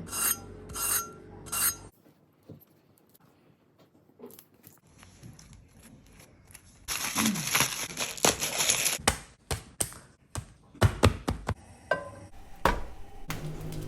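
Kitchen handling sounds while preparing a grilled cheese: a few clinks at the start, then about two seconds of crinkling and tearing of packaging about seven seconds in, followed by a series of sharp knocks and clicks.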